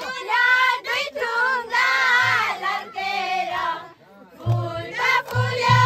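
Voices singing a melody that breaks off briefly about four seconds in, then resumes over a low, pulsing beat.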